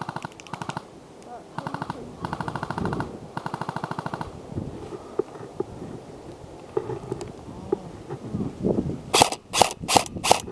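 Airsoft guns firing rapid full-auto bursts, three bursts in the first four seconds. Near the end come four louder, sharp single shots about half a second apart.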